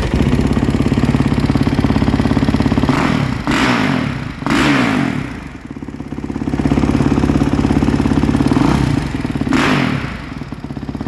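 Kawasaki KX450 motocross bike's single-cylinder four-stroke engine with a Pro Circuit exhaust, idling with a fast even beat and blipped on the throttle: a short rev about three seconds in, a bigger one just after, and another near the end.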